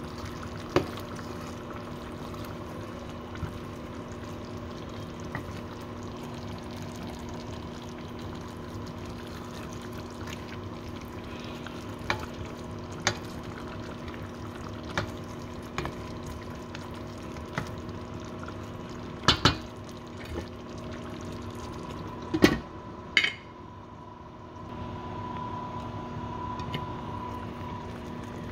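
Chicken legs simmering and sizzling in a bubbling ketchup sauce in a non-stick wok, with scattered clicks and scrapes of a wooden spatula against the pan, over a steady hum. A few louder knocks come a little after twenty seconds, and then the bubbling turns quieter.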